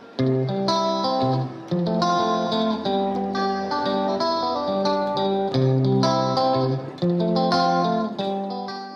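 Instrumental background music led by a plucked guitar melody over steady bass notes, starting suddenly at the very beginning and dropping slightly near the end.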